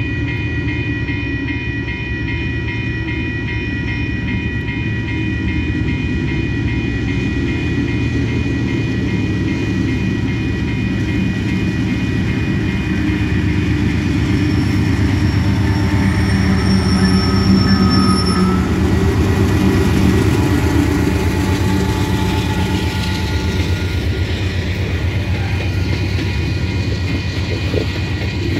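Freight train led by a Norfolk Southern diesel locomotive passing a grade crossing: the locomotive's rumble builds to its loudest about two-thirds of the way through as it goes by, then the freight cars roll past. A crossing bell rings steadily throughout.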